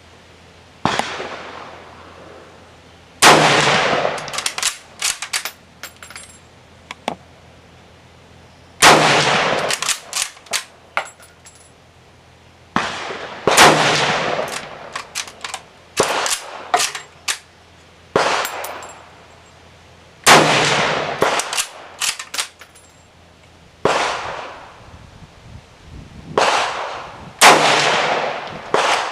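Mosin-Nagant M91/30 bolt-action rifle firing five shots, one every five to seven seconds. Each is a sharp report with a ringing echo, followed by quick metallic clicks and clacks of the bolt being worked. A few fainter bangs fall between the shots.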